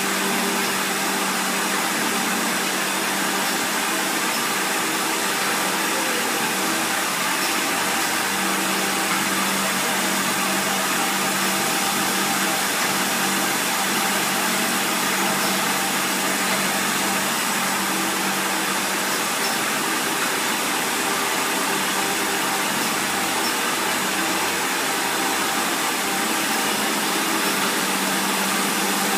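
Milkotek-Hommak yogurt filling machine running: a steady motor hum over an even hiss.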